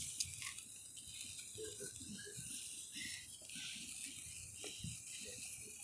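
Small firework burning with a steady crackling fizz and scattered quiet clicks, with faint voices underneath.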